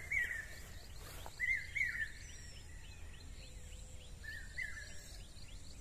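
A bird calling three times: short warbling phrases spaced one to three seconds apart, with fainter quick chirps between them, over steady low outdoor background noise.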